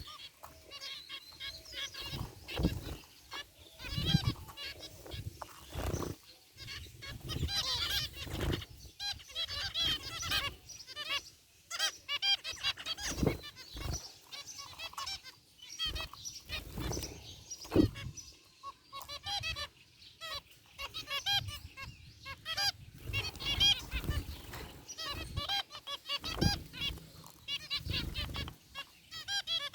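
A group of zebra finches calling continuously: many short, nasal, honking chirps overlapping one another, with scattered low thumps among them.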